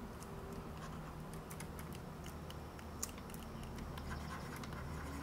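Faint, scattered clicks of a computer keyboard over a low steady hum.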